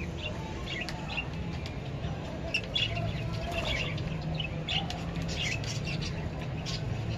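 A flock of lovebirds chirping: many short, high calls, sparse at first and coming thick and fast after a couple of seconds, over a steady low hum.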